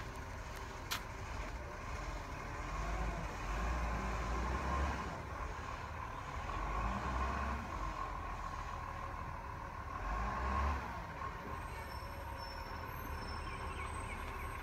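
Garbage truck engine running at a distance as the truck approaches, swelling louder three times for a second or two each.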